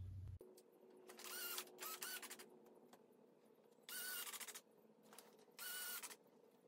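Cordless drill driving short coated screws through steel flashing into an aluminum frame: four short bursts of the motor's whir, one per screw, with pauses between.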